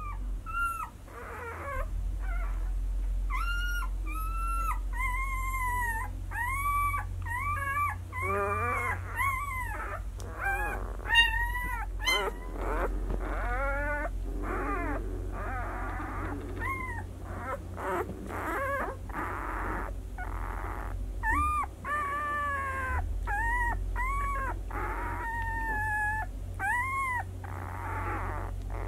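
Six-day-old White Swiss Shepherd puppies squeaking and whimpering: many short, high cries that rise and fall, one after another, over a steady low hum.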